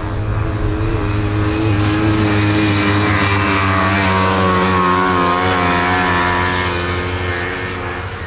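Vintage racing snowmobiles' two-stroke engines running at high revs as the sleds pass. The pitch wavers and climbs in the middle, where it is loudest, then fades near the end.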